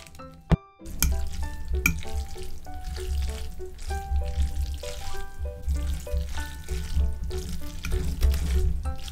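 A fork tossing and stirring boiled Samyang spicy ramen noodles through their sauce in a glass dish: wet, squishy mixing that starts about a second in, after a single sharp click, over light background music.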